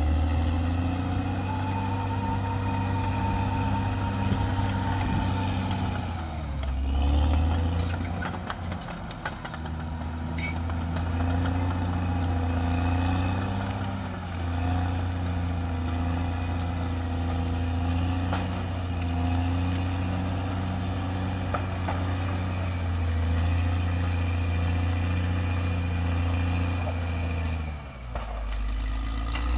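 CAT D6R XL bulldozer's diesel engine running steadily under load. Its pitch sags briefly about seven seconds in and again near the end, with scattered light clanks.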